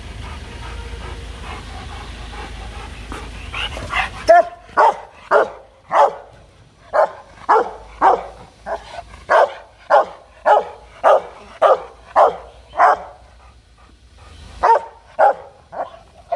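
Rottweiler giving threatening, aggressive barks: a long rapid series of loud barks at about two a second, starting about four seconds in with a brief pause near the end. Before the barking there is only a low steady rumble.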